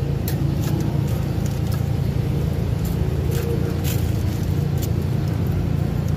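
Steady low motor rumble with a few light clicks, likely from the ladle knocking against the plastic cups as the dipping sauce is poured.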